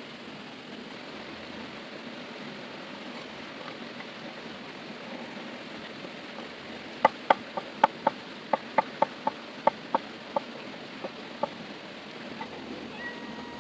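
Steady rush of a river flowing. From about halfway through, a run of about a dozen short, sharp knocks, two or three a second, that then thin out.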